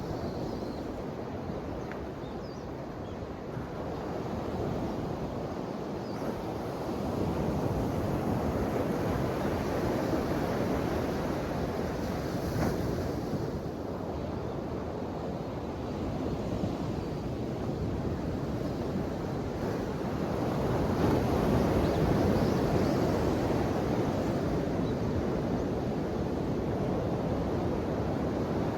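Ocean waves breaking and washing ashore in a continuous rush, swelling louder twice as bigger waves come in.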